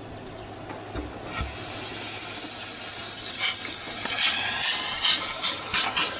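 Steam-powered motorcycle pulling away: steam hissing with a steady high squeal from about two seconds in, then exhaust chuffs that come faster and faster as it gets under way.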